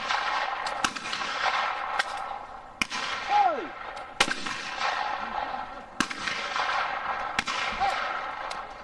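Shotgun shots at a trap range: a string of sharp reports a second or two apart, some loud and close, others fainter.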